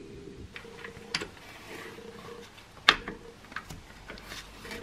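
Light metal clicks and taps from handling a Saab 9-5's handbrake shoes and their hardware by hand inside the rear disc's drum. There are a few sharp clicks, the loudest about three seconds in.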